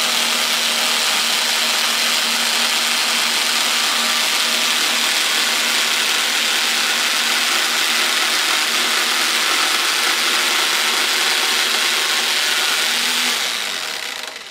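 A power tool running steadily at constant speed, then winding down near the end.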